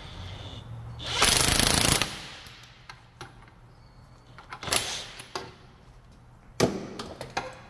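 Cordless DeWalt XR impact wrench whirring, then hammering for about a second as it drives a pipe expander to stretch the catalytic converter's exhaust pipe. A few sharp metal clanks follow as the expander is worked loose.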